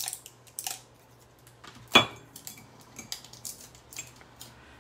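Light clicks and clinks of a ceramic mug and small craft tools being handled and set down on a work table, with one sharp clink about two seconds in.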